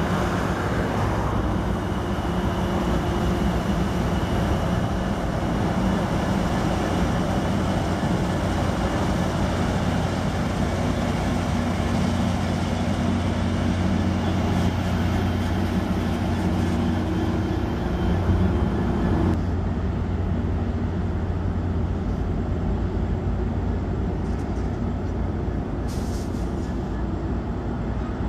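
Amtrak Pacific Surfliner passenger train passing, its F59PHI diesel locomotive pushing at the rear with a steady engine drone over the rumble of the bi-level cars. About two-thirds of the way through the sound changes abruptly to the lower rumble of the cars rolling on a curve.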